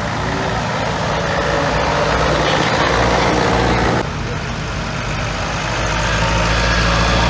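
Tractor engines running as tractors drive past one after another: first a red vintage International tractor, then a Case International XL-cab diesel tractor. The sound drops suddenly about four seconds in and then grows louder again as the Case draws close near the end.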